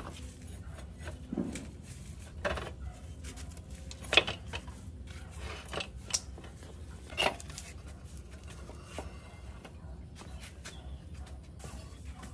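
Scattered light metal clinks and knocks of parts being handled in a workshop, about five separate strikes in the first seven seconds, over a steady low hum.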